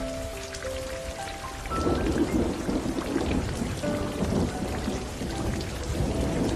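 Steady rain with a long rumble of thunder that rolls in about two seconds in and dies away near the end. A few soft held musical notes sound over the rain before the thunder.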